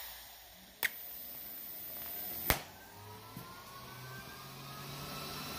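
TIG torch being scratch-started on a steel welding table to get the argon flowing: a hiss that fades in the first second, then two sharp clicks about a second and two and a half seconds in, the second louder, followed by a steady faint hiss with a faint rising whine.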